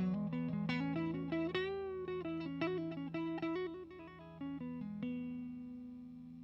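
Electric guitar, a PRS Silver Sky with single-coil pickups, played through an HTJ Works Valve Crystal 12AX7 tube preamp pedal into a 6L6 tube amp's return. It plays a quick lick of single notes over a ringing low note, with a string bend about two seconds in. A last note about five seconds in rings out and slowly fades.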